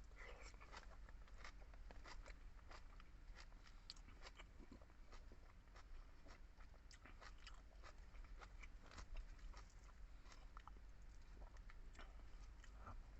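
A person chewing and eating close to the microphone: faint, irregular, wet clicks and soft crunches of food in the mouth, many times over.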